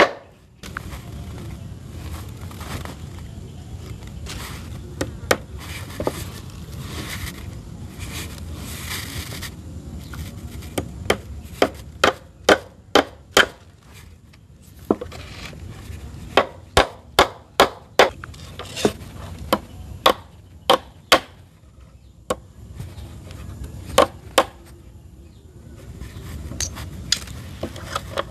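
Sharp strikes of a tool on wood, coming in irregular runs of quick blows with pauses between.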